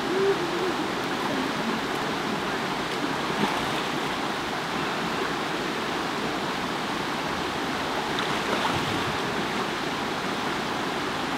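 Shallow mountain river rushing steadily over rocks.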